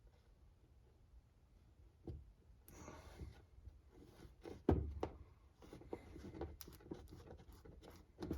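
Faint clicks and taps of small RC transmission parts and tools being handled while the gears are greased, with one louder knock about halfway through.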